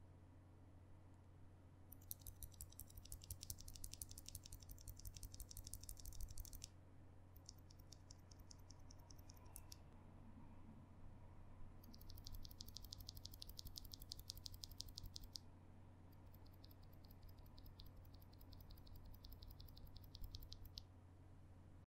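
Loose Durock T1 and Shogoki tactile keyboard switches, held between the fingers and pressed over and over, in four quiet runs of rapid clicking.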